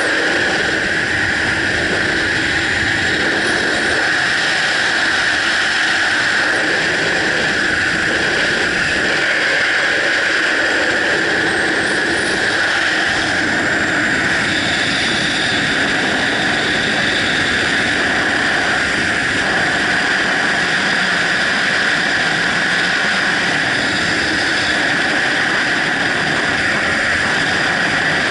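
Steady, loud rush of freefall wind blasting over a body-mounted camera's microphone.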